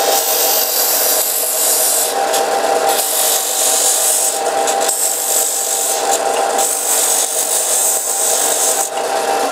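Electric sanding machine running steadily while a small wooden stick is pressed against the abrasive, each side briefly sanded. The hiss of wood on sandpaper rises and falls over the motor's steady hum as the stick is lifted and turned.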